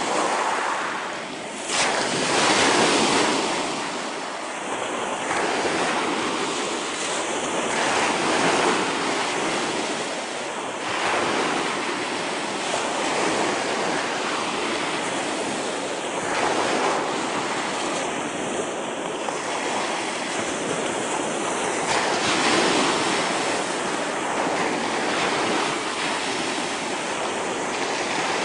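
Surf breaking on a shingle beach, the waves swelling and washing in every few seconds.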